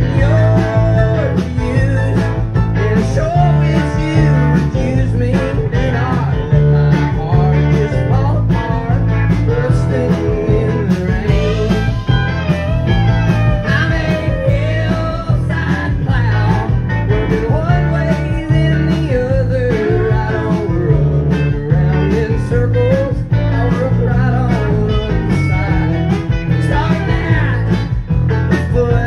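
A live country-rock band plays a mid-tempo song on acoustic guitar, electric bass, drums, keyboards and electric guitar. A steady bass-and-drum groove runs under a wavering melody line.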